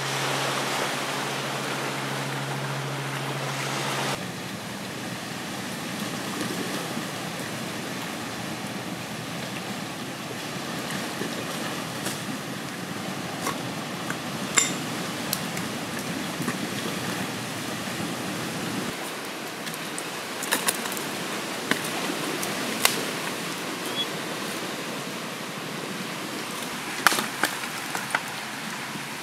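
Steady wash of sea surf on a rocky shore. A low steady hum runs for the first four seconds and stops abruptly. After that a small wood fire burns, giving occasional sharp snaps and crackles over the surf.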